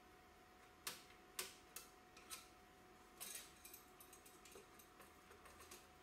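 A screwdriver and the sheet-metal shield of a Philips DCC900 cassette deck's audio board being unscrewed and lifted off, giving faint clicks and light metallic clinks: four sharp ticks in the first two and a half seconds, then a quick run of smaller rattling ticks.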